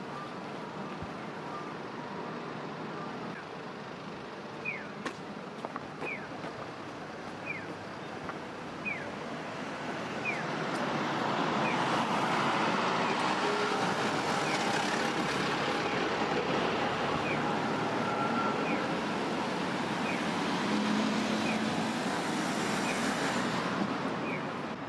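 Street traffic noise that swells loud about ten seconds in as a vehicle passes close, staying loud until near the end. Over it, short high falling chirps repeat about every three-quarters of a second, like a Japanese pedestrian crossing signal.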